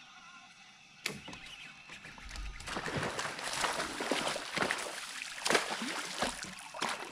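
A sharp knock about a second in, then a hooked bowfin thrashing at the water's surface in repeated heavy splashes.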